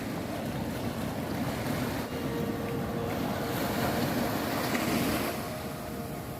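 Sea waves surging and washing over shoreline rocks, a steady rush that swells louder about four to five seconds in, with wind on the microphone.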